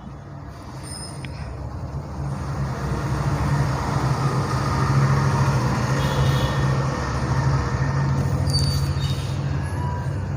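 A large engine running, a steady low hum under a rumbling haze that grows louder over the first few seconds and then holds.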